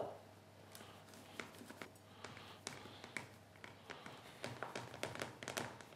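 Hands pressing and patting raw sausage-meat stuffing into a metal roasting tray, making faint, irregular soft taps.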